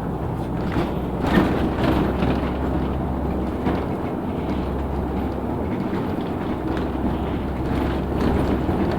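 A LiAZ 6213.65 articulated city bus under way, heard from inside the passenger cabin: a steady low engine and road rumble with occasional knocks and rattles from the body.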